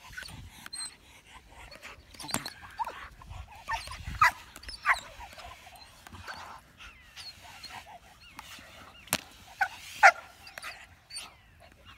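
Dutch Shepherd barking in short, sharp bursts at a decoy during protection bite work, the loudest barks about four to five and ten seconds in. A couple of sharp cracks land about two and nine seconds in.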